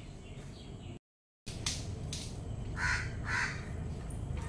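Two short, harsh bird calls about half a second apart, over a low steady background; the sound drops out briefly about a second in.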